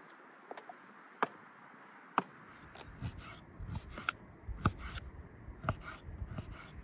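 Kitchen knife chopping raw fat into cubes on a wooden cutting board: a few sharp taps at first, then from about three seconds in a quicker, irregular run of knocks as the blade strikes the board.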